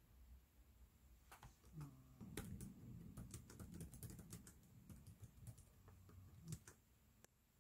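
Faint typing on a laptop keyboard: a run of quick, irregular key clicks starting about a second in and stopping near the end.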